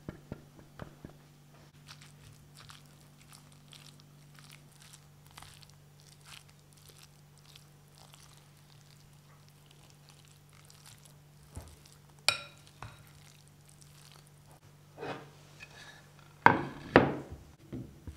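Wooden spoon mixing cooked rice with tuna and mayonnaise in a glass bowl: soft squishing and light clicks of the spoon on the glass. A sharp click comes about two-thirds of the way through, then a few louder knocks near the end as a knife cuts a green onion on a wooden cutting board.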